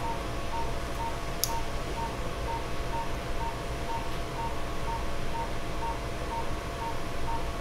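Patient monitor's pulse beep in the operating room, a short steady tone repeating about twice a second, one per heartbeat, over a low steady hum. A single faint click about one and a half seconds in.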